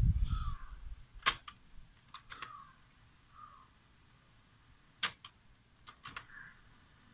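Mechanical piano-key transport buttons of a Technics RS-D200 cassette deck being pressed and released: sharp clicks coming in pairs, about a second in, a little after two seconds, and twice more around five to six seconds in.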